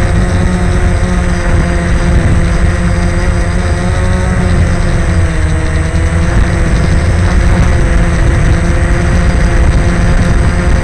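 DJI Phantom quadcopter's motors and propellers humming steadily, recorded from the drone itself, over a deep rumble. The hum's pitch dips briefly about halfway through as the motor speed changes, then comes back up.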